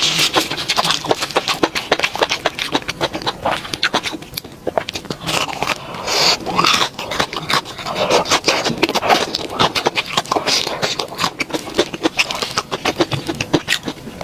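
Close-up eating sounds: crunching and chewing on fried skewers, a dense run of crisp crackles and wet clicks.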